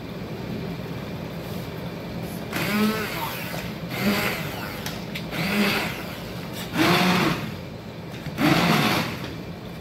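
Hand blender pureeing cooked dal, run in about five short bursts, its motor pitch rising as each one starts, over a steady background hiss.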